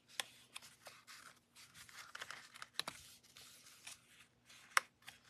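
Cardstock rustling and scraping under fingers as a layered paper greeting card is pressed and handled on a tabletop, with a few sharp clicks, the loudest near the end.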